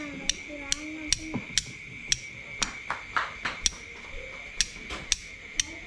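Steel striker struck against flint again and again: sharp metallic clicks with a short ring, roughly twice a second and bunched closer together in the middle.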